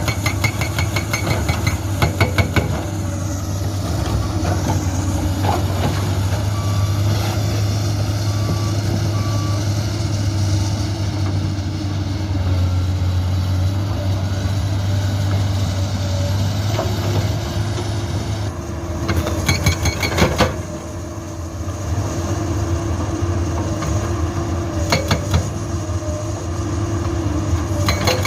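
Komatsu PC200-8 excavator's diesel engine running steadily under load, with a Soosan SB81 hydraulic breaker hammering rock in fast repeated blows for the first few seconds, again in a burst about two-thirds of the way through and briefly near the end. Three short beeps sound between the hammering bursts, like the machine's travel alarm.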